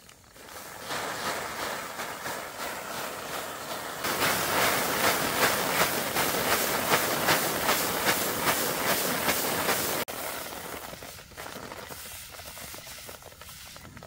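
Dry rice stalks and straw rustling and swishing in a steady rhythm of about three strokes a second as they are worked by hand. The rustling gets louder about four seconds in and drops back abruptly near ten seconds.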